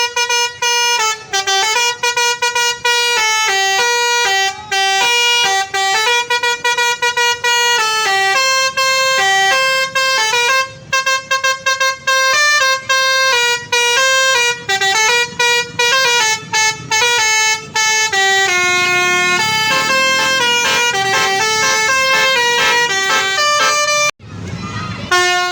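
Telolet bus horn playing a fast tune: a long run of short, stepped horn notes with brief gaps between them, stopping abruptly near the end.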